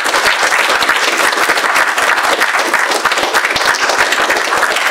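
Audience applauding: loud, dense clapping from a roomful of people, without a break.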